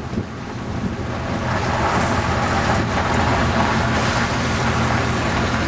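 Steady engine and road hum inside a vehicle driving through a storm, with a rushing wind and rain noise that grows louder about a second and a half in.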